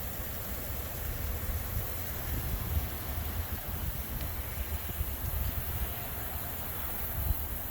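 Wind rumbling on the microphone, an irregular low buffeting over a steady hiss.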